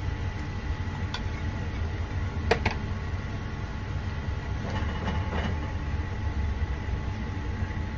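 Cooking utensils working in a frying pan over a steady low hum: a metal spoon clinks sharply against the pan twice about two and a half seconds in, then a silicone spatula scrapes and stirs through the sauce around five seconds in.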